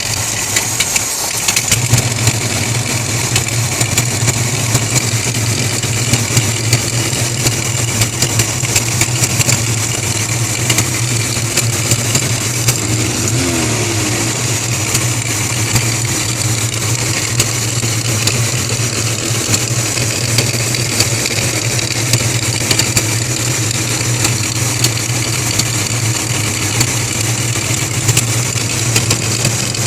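1983 Ford Mustang engine idling steadily with a rapid ticking from the valvetrain, which the owner suspects is a bad lifter or misadjusted rocker arms.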